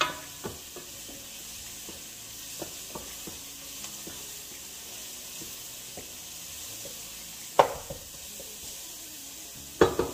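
Onions and garlic sizzling as they fry in a pot, with a wooden spoon stirring and scraping through them in small clicks. There is a sharp knock of cookware about seven and a half seconds in and a quick run of clatters at the very end.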